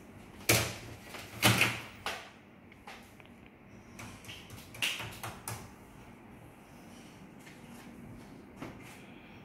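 Plastic audio cassette cases clacking and knocking together as they are handled and stacked, in two short clusters of sharp knocks; the loudest come about half a second and a second and a half in.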